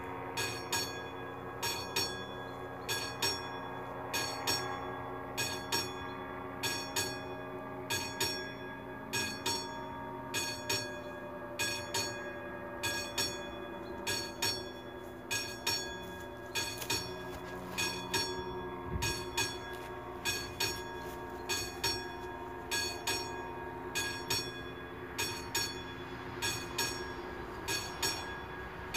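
Classic electric bell of an AŽD 71 level-crossing warning signal ringing in rapid, evenly repeated strokes while the crossing's red lights flash to warn of an approaching train. A few steady humming tones sound beneath it.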